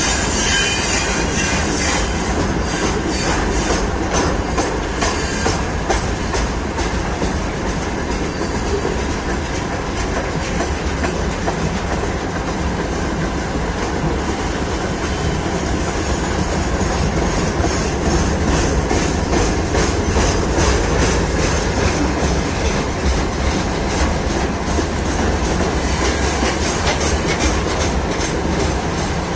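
Railway carriage wheels clacking over rail joints as a train rolls along: a steady rumble broken by repeated runs of sharp knocks.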